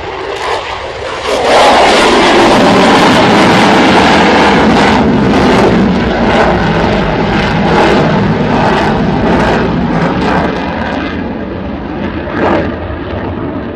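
Jet noise from a Lockheed Martin F-22 Raptor's twin turbofan engines as the fighter flies past low and climbs away. The noise rises sharply about a second and a half in, stays loud, and fades a little toward the end.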